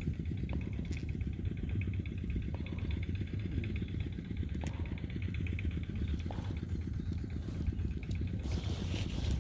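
A small engine running steadily, a low rumble with a fast even pulse, with a faint rhythmic ticking above it and a few light clicks.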